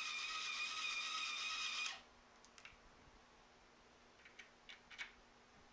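Milling machine motor running with a steady high whine that cuts off suddenly about two seconds in. A few light metallic clicks follow as parts are handled at the vise.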